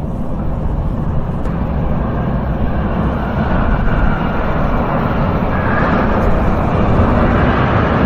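Metro train approaching: a steady rumble that grows gradually louder, with a higher rushing sound building over the last few seconds.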